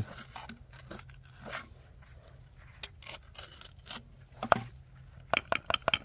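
Gritty scraping of a trowel blade and gloved hands on the dirt-caked ceramic lid of a buried urn as it is worked at; the lid is stuck, sealed to the rim over time. Near the end comes a quick run of sharp clicks and short squeaks as the lid is twisted against the rim.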